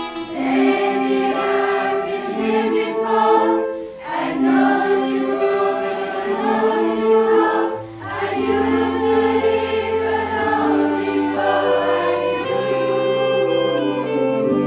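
A youth choir singing in parts with a wind band of clarinets and flutes playing along. The music comes in sustained phrases with brief breaths about 4 and 8 seconds in, and low bass notes enter around 8 seconds.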